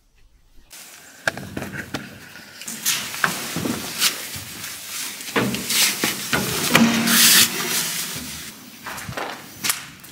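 Close rustling, scuffing and irregular knocks of a person clambering through a narrow gap into a building, clothes brushing against the microphone. It starts under a second in and is loudest a little past the middle.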